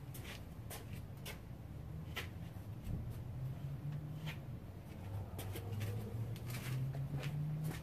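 Faint scattered light clicks of small parts being handled, about one a second, over a low steady hum.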